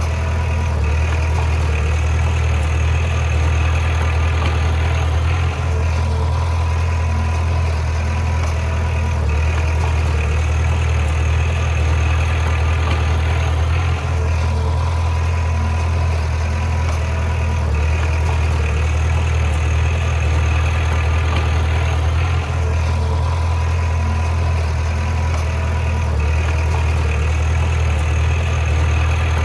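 Bulldozer's heavy diesel engine running steadily, with brief dips in level about every eight seconds.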